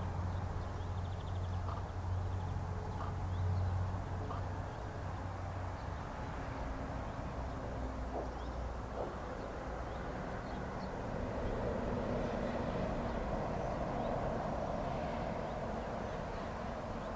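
Outdoor background sound: a low, steady engine drone for about the first six seconds, then a wider hiss swelling later on. Faint short bird chirps come through now and then. The storks on the nest make no clear sound of their own.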